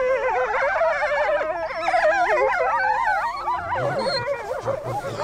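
Several gray wolves whining and yelping at once, many high, wavering voices overlapping, as part of a pack dominance display. Lower voices join near the end.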